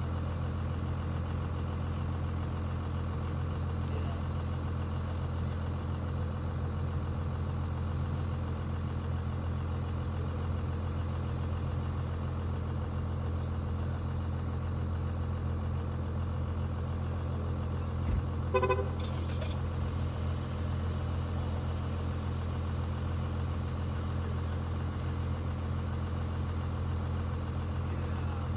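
A vehicle engine idling steadily, with one short horn toot about two-thirds of the way through.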